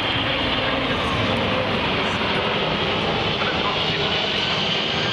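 Boeing 747-400's four turbofan engines giving a loud, steady jet noise as the airliner flies a banked display pass, with a faint high whine over it in the second half.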